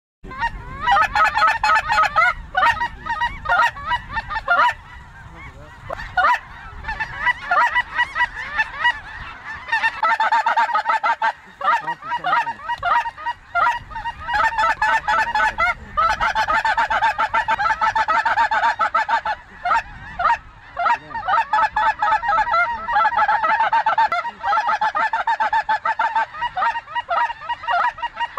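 A large flock of snow geese calling in the air, a dense continuous din of many overlapping high-pitched honks that starts abruptly and grows thicker about ten seconds in.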